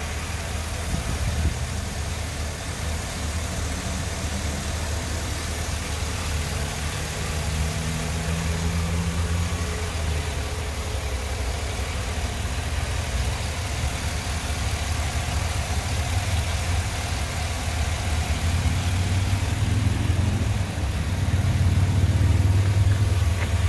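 Chevy Silverado 2500HD's 6.0-litre Vortec gasoline V8 idling steadily with the hood open, getting a little louder near the end.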